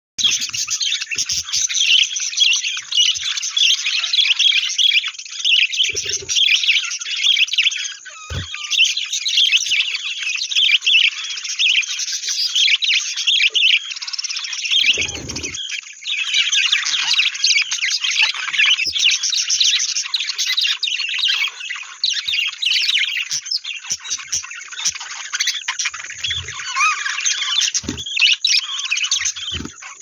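Budgerigars chirping and chattering without a break, a dense mass of high, quick calls, with a few dull knocks scattered through.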